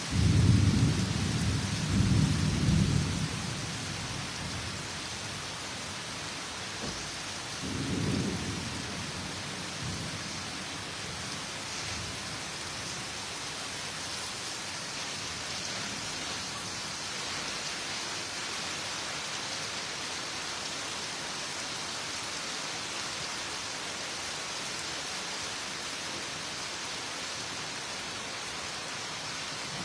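Steady downpour of rain, with deep rumbles of thunder during the first three seconds and again about eight seconds in.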